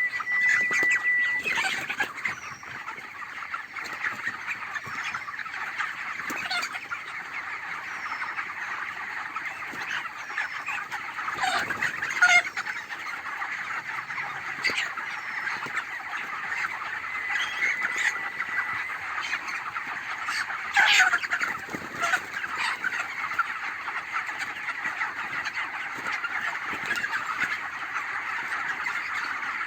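Large flock of 26-day-old broiler chickens calling together in a dense, continuous chatter of peeps and cheeps, with a few louder calls standing out now and then. A steady high tone stops about a second and a half in.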